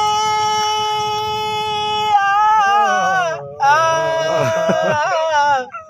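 A man singing a Balochi song in a strong, high solo voice: a long held note for about two seconds, then a falling, ornamented line, a brief break, and another wavering phrase.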